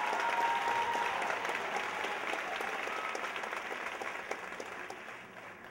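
Theatre audience applauding the dancers' curtain call, with a few cheering voices near the start. The applause dies away toward the end.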